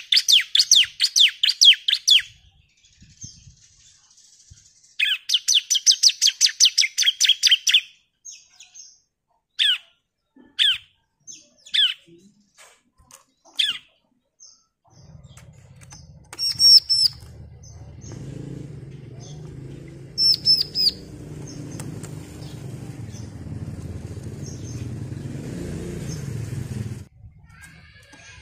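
Bar-winged prinia (ciblek) singing: fast rattling trills of high, evenly repeated notes, then single downslurred call notes spaced a second or so apart and a few higher notes. A low background rumble comes in about halfway and stops just before the end.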